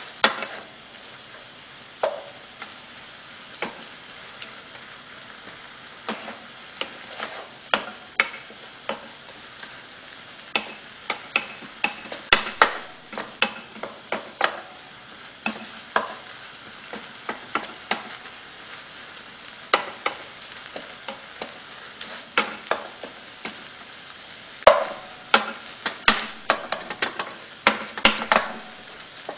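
Fried rice with chicken and vegetables sizzling in a frying pan while a wooden spatula stirs it. The spatula knocks and scrapes against the pan in irregular clicks over a steady sizzle, most often about a third of the way in and near the end.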